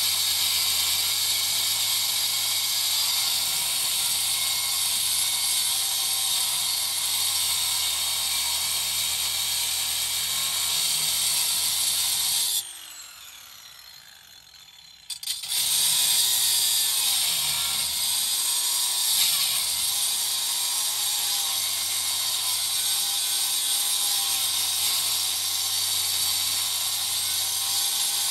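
A power tool running steadily. It stops about twelve seconds in and starts again a few seconds later.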